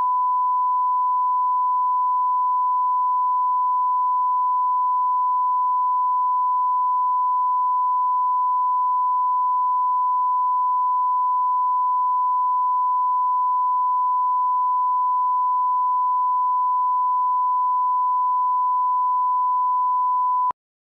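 Steady 1 kHz bars-and-tone line-up tone, a single pure note at about −20 dB full scale, the standard reference level for a programme master's audio; it cuts off abruptly near the end.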